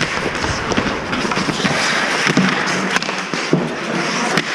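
Ice hockey play: steady scraping hiss of skate blades on ice, broken by several sharp clacks of sticks and puck.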